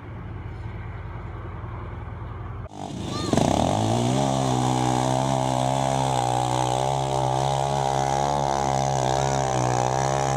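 A low vehicle rumble, then a sharp change about three seconds in to a quad ATV's engine held at high, nearly steady revs as it drives through a mud pit. The engine note is strong and steady.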